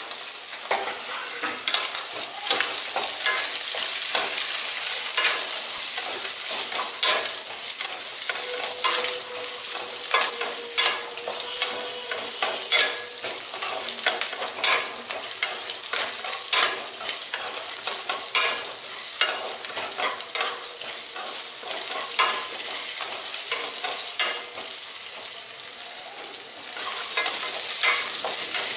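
Whole spices, nuts, onion and garlic sizzling in a little hot oil in a kadai as a steady hiss, being stirred and scraped with a wooden spatula, with many small clicks throughout. They are being lightly fried, not browned hard.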